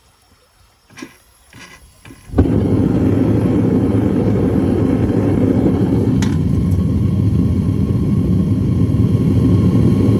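Propane burner of a gas melting furnace roaring steadily, cutting in suddenly about two seconds in after a few light clinks. About six seconds in there is a single metallic clink as the steel lid is set on the furnace.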